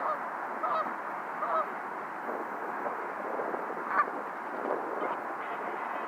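Geese honking: several short scattered honks over a steady background rush.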